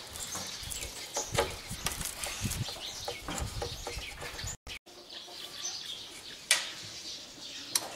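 Scattered light clicks and knocks as hands handle the sheet-metal case of a small inverter stick welder, with birds chirping in the background. About a second and a half before the end comes one sharper click.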